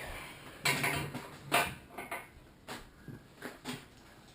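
Irregular metallic clanks and rattles as a blown GM LS L98 6-litre V8 is turned over on an engine stand, with broken internal parts shifting and falling out of it.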